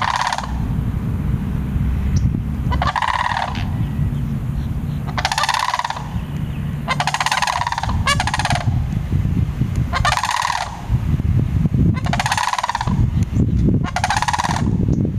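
A pair of sandhill cranes calling: loud, rolling, rattling bugle calls, about one a second long, repeated every two seconds or so. A steady low rumble runs underneath.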